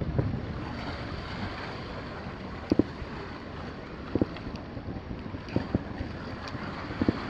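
Distant fireworks bursting as a scattered series of sharp pops, some in close pairs, over steady wind noise on the microphone.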